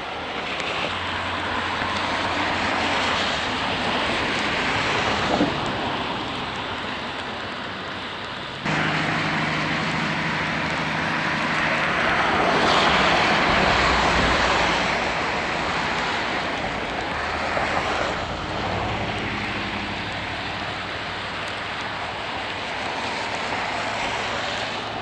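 Floodwater rushing in a steady, loud roar of noise, stepping up sharply about nine seconds in.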